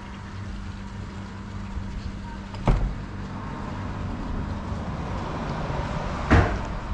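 A car passing on the road: a steady low hum and a wash of tyre and engine noise building toward the end. Two sharp knocks, one about three seconds in and a louder one near the end.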